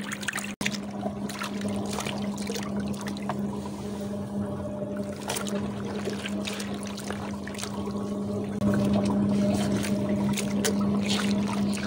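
Spin dryer's motor humming steadily, with water sloshing and splashing as clothes are worked by hand in a tub of bluing water. The hum gets louder about nine seconds in.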